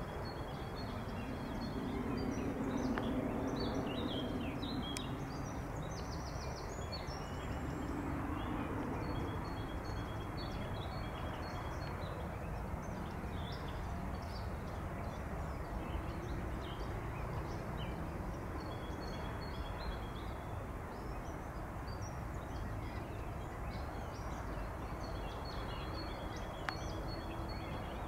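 Small birds chirping and calling repeatedly over a steady low background rumble, with a low drone in the first several seconds.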